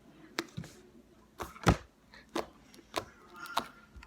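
Fluffy homemade slime (glue with shaving cream) being squeezed and pulled by hand, giving about seven irregular sharp clicks and pops as trapped air bubbles burst; the loudest comes a little under two seconds in.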